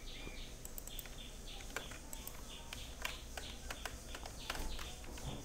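Computer keyboard keys clicking in faint, irregular taps as code is typed.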